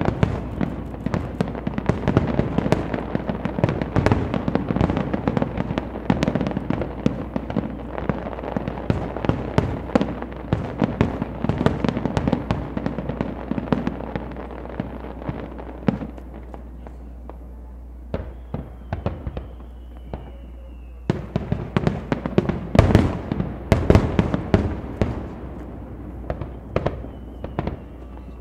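Fireworks shells bursting in rapid, crackling volleys of bangs, dense at first, thinning about two-thirds of the way through, then another cluster of loud bangs. A faint falling whistle is heard twice in the later part.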